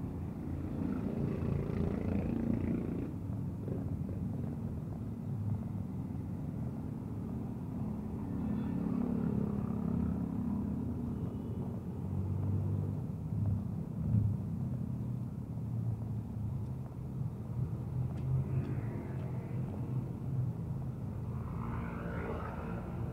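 Low, steady rumble of motor vehicle engines, city traffic running on.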